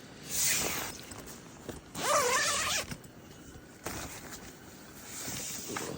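Tent door zipper being unzipped in several separate rasping pulls.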